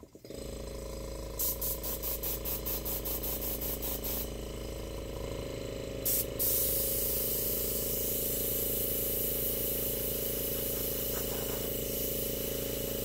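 Airbrush air compressor starts up and runs with a steady hum while the airbrush hisses air in rapid short spurts, then blows continuously from about six seconds in.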